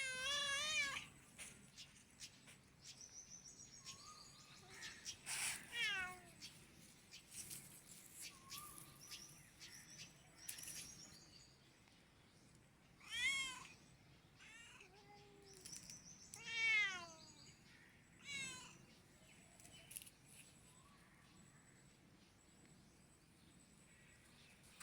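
Hungry cat meowing over and over for food: about six drawn-out meows, most falling in pitch, with pauses of a few seconds between them.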